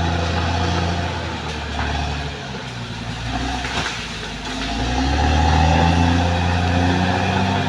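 Caterpillar D6R XL bulldozer's diesel engine running under load. Its note drops and eases off about two and a half seconds in, then rises and grows louder again from about five seconds.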